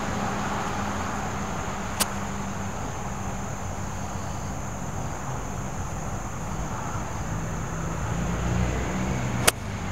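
Pitching wedge striking a golf ball: one sharp click about two seconds in, with a second sharp click near the end, over a steady low background rumble and a high hiss.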